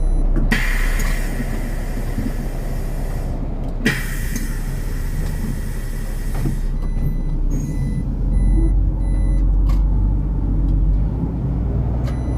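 City bus's pneumatic system letting out two long hisses of compressed air at a stop, each about three seconds and starting abruptly, over the low running of the diesel engine.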